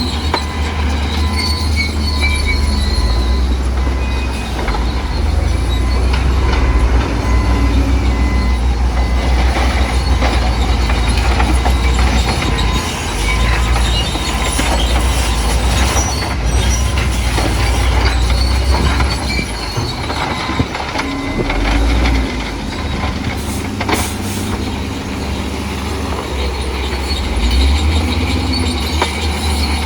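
Crawler bulldozer working: diesel engine running under load, with the squeal and clank of its steel tracks.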